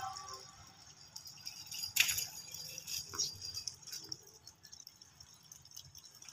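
Faint outdoor background ambience with a light high chirring that fades after about three seconds, and one sharp click about two seconds in.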